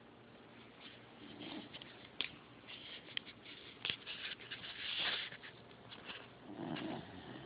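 Sleeping corgi snoring: two low snores about five seconds apart, with a breathy hiss between them and scattered light clicks.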